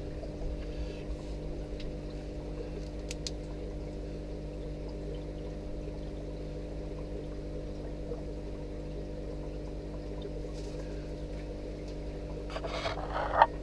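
Aquarium filter running: a steady hum with water trickling and pouring into the tank. A brief louder noise comes near the end.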